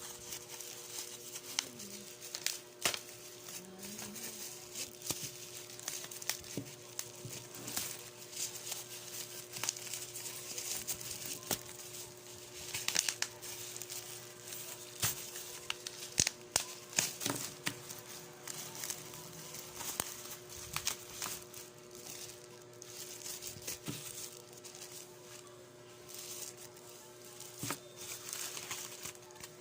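Plastic parcel packaging being crinkled and torn open by hand, with irregular rustles and sharp clicks throughout. A faint steady hum runs underneath.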